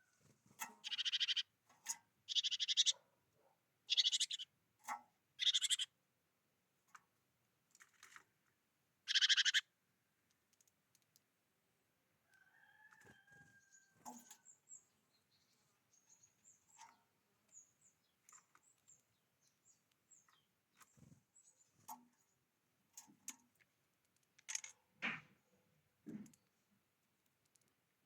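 Wild bird calling: a series of about six loud, harsh calls in the first ten seconds, then fainter high chirps and scattered clicks.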